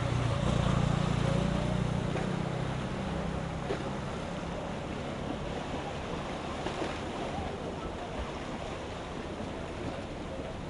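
Outdoor waterside ambience: steady wind and water noise, with a low motorboat engine hum that is loudest in the first couple of seconds and then fades away.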